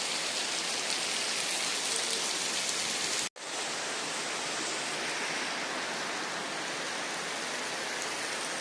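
Heavy rain pouring down in a steady, dense hiss, cut off completely for a split second about a third of the way in before resuming unchanged.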